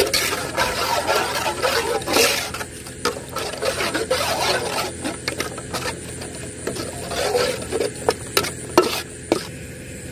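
Metal spatula stirring and scraping masala gravy in a cooking pan, with several sharp knocks of the spatula against the pan in the last few seconds.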